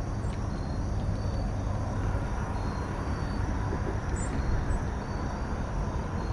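Outdoor creekside ambience: a steady low rumble, with insects chirping faintly in short, evenly repeated trills.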